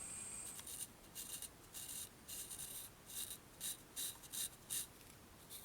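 Faint short scraping strokes, about a dozen, of a Case Tribal Lock pocket knife's drop-point blade edge being drawn in a sharpness test. The edge is sharp but not razor sharp.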